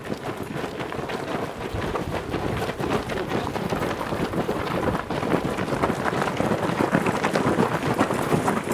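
Many people hopping and shuffling along together on gravel: a dense, steady crunch of footsteps on loose stones.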